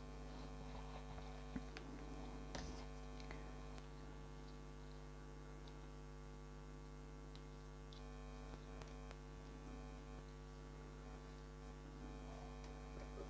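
Faint, steady electrical mains hum, with a couple of light clicks of alligator clips and wire being handled in the first few seconds.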